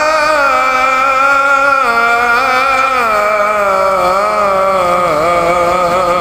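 A man singing an Arabic nasheed unaccompanied, holding one long drawn-out melismatic vowel without a break; the pitch steps and slides slowly downward with small ornamental wavers about two-thirds through.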